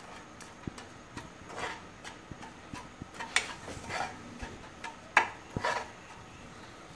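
Metal ladle scraping and clicking irregularly against a dry metal kadai while stirring sugar melting in the hot pan to caramelize it.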